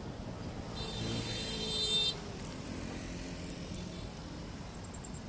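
Road traffic going by, cars and motorcycles passing. One vehicle passes close and louder about one to two seconds in, its engine note falling slightly, then the sound drops back abruptly.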